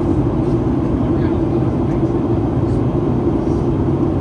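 Steady low rumble of cabin noise inside a Boeing 737-800 in flight: airflow over the fuselage and the CFM56-7B turbofan engines, heard through the cabin wall by the wing.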